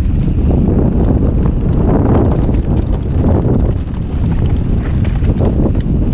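Wind buffeting the microphone while bike tyres rumble and rattle over a rough dirt trail, the noise swelling and easing every second or two with many small knocks.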